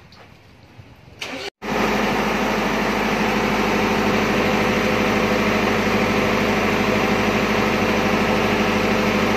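Four-cylinder R4105ZDS diesel engine of a Maxtron MI 58 TD generator set running steadily at its rated 1500 rpm. It cuts in abruptly about a second and a half in, after a short quiet stretch with a couple of light clicks.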